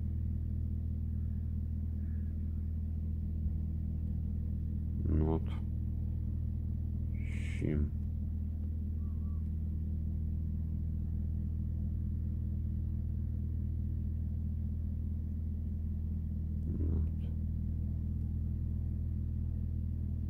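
Steady low hum made of several tones, with a few brief faint noises about five, seven and a half and seventeen seconds in.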